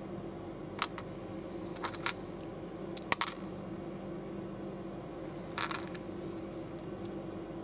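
Small plastic building bricks clicking and snapping together as they are handled and pressed onto each other: a few sharp clicks, the loudest a quick cluster about three seconds in, and a short rattle near six seconds. A steady low hum runs underneath.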